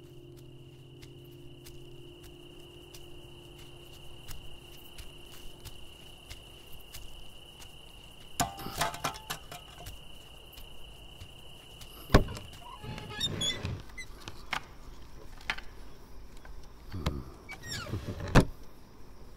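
Night ambience: a steady high cricket trill that stops about 13 seconds in, with a few sharp knocks and rustles scattered through the second half, the loudest about 12 seconds in and another near the end.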